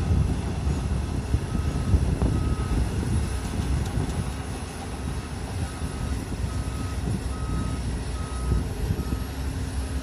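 Diesel engine of a Komatsu PC200 hydraulic excavator running at work, with a machine's back-up alarm sounding short single beeps on one note, a little faster than one a second, with a brief gap in the middle.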